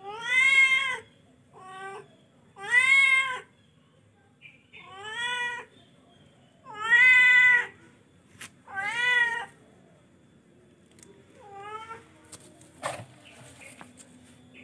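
A young kitten meowing loudly over and over: about eight long calls, one every second or two, each rising then falling in pitch. The calls grow fainter and sparser in the last few seconds, and a single sharp tap comes near the end.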